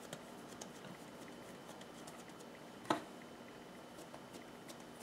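Fingers pressing and patting balls of bread dough flat on a silicone baking mat: faint soft pats and ticks, with one short, sharper tap about three seconds in.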